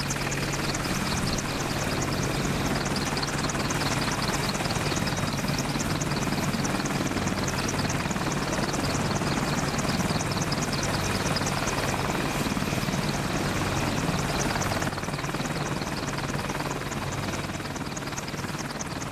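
AH-64 Apache helicopter on the ground with its twin turboshaft engines running and main rotor turning: a steady turbine whine and rotor thrum with a fast, fine chopping from the blades. About fifteen seconds in, the sound drops a step and then tapers off.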